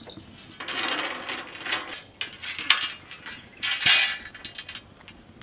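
Metal cooking vessels and utensils clattering and scraping in a run of bursts, with a sharp clink about two and a half seconds in, settling down after about four seconds.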